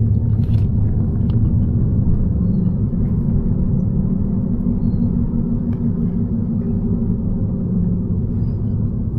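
Steady engine and road rumble inside a moving car's cabin, with a few faint clicks.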